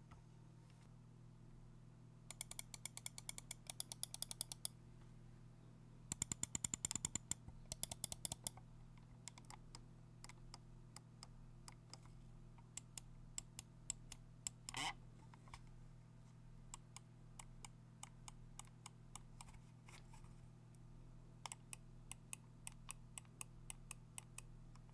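Logitech Lift vertical ergonomic mouse being clicked and scrolled: two fast runs of ticks, then single button clicks spaced out, each a light, quiet click.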